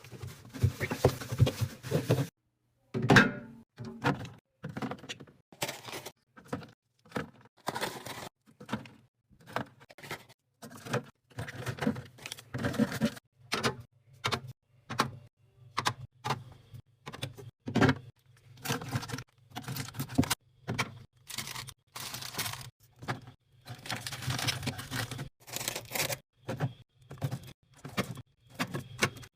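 Items being handled and set into a mini fridge: a steady run of short knocks, taps and thunks, with a few longer stretches of handling noise at the start and again near the end.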